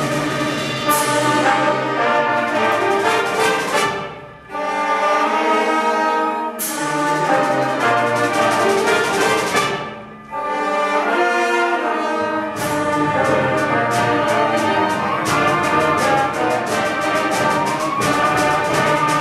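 Concert band playing, with the brass section prominent. The music thins out almost to nothing twice, briefly, then about two-thirds of the way in it picks up a quick, steady beat of sharp accents under the band.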